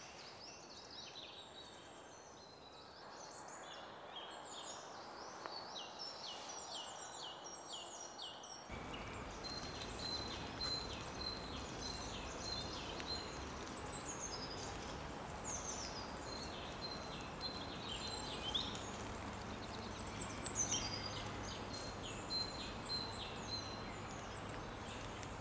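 Faint woodland birdsong: small birds singing short, high phrases of quick falling notes, repeated again and again, over a soft steady outdoor hiss that gets louder about nine seconds in.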